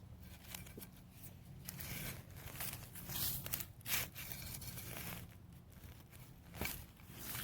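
Rustling and crackling of ginger stalks, rhizomes and soil being handled and replanted in a container, with a few sharper tearing crackles about four seconds in and again near the end.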